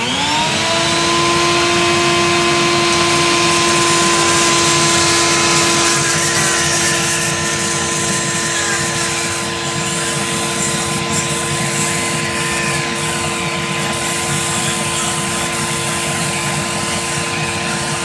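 A vacuum's motor starts and spins up to a steady whine within about a second. A Dremel rotary tool with a sanding bit runs against an artificial duck head held at the vacuum hose, adding a dense grinding hiss.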